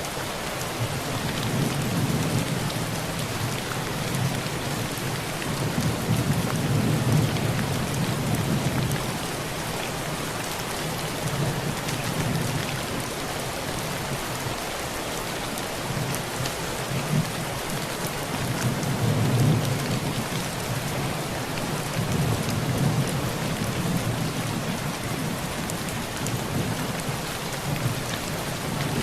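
Heavy rain falling steadily on a tin roof, with low rumbles of thunder rolling in and fading away several times.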